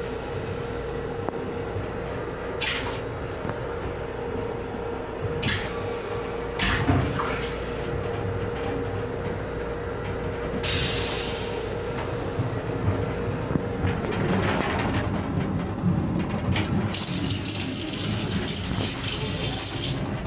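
Inside the restroom of an M7 electric railcar: a steady low rumble with a constant hum that stops about two-thirds of the way through. Short hisses come several times, and a longer hiss runs near the end.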